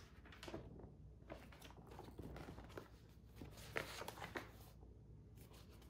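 Faint paper rustling and soft handling clicks as the large pages of a picture book are turned, over a low steady room hum.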